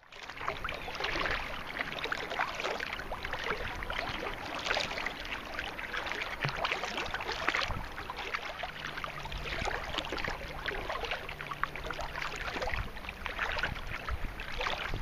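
Choppy lake water slapping and splashing against a kayak's hull as it is paddled along, many small irregular splashes over a low rumble of wind on the microphone.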